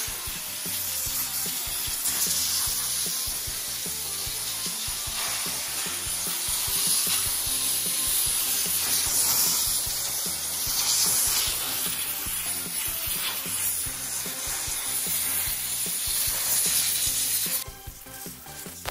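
Steam cleaner's nozzle jetting dry steam over an engine bay during a final rinse: a loud, steady hiss that cuts off suddenly near the end.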